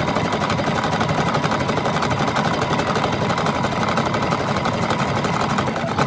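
Electric household sewing machine running steadily at speed, its needle stitching through dark fabric with a rapid, even mechanical clatter.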